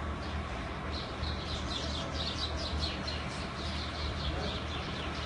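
Small birds chirping: a rapid run of short, high, downward-sliding chirps starting about a second in, over a steady low hum.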